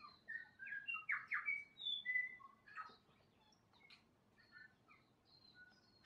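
New Zealand bellbird singing: a quick run of clear, bell-like whistled notes over the first two seconds or so, then a sharp click-like note and a few softer scattered notes.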